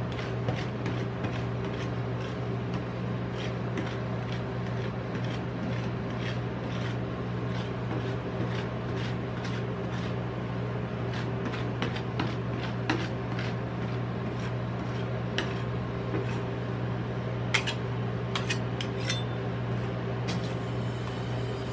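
Metal spatulas tapping, chopping and scraping on the frozen steel plate of a rolled ice cream machine, many quick clicks and scrapes that thin out later. Under them runs the machine's steady low refrigeration hum.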